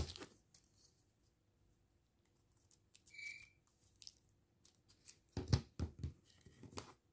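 Thin plywood box panels and diamond-painting strips being handled on a wooden table: a soft knock at the start, light rubbing and sliding, a brief high squeak about three seconds in, and a cluster of heavier knocks a little after five seconds.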